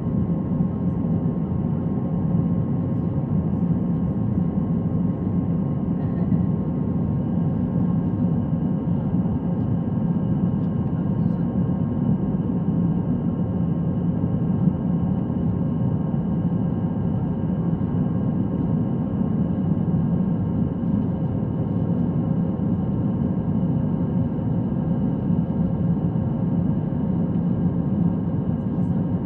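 Airbus A321 cabin noise during the climb after takeoff: the steady low roar of the jet engines and airflow, heard inside the cabin, with a few faint steady tones over it.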